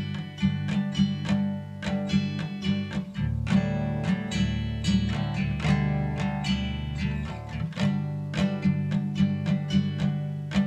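Background song's instrumental opening: acoustic guitar playing a quick run of picked and strummed notes, without singing.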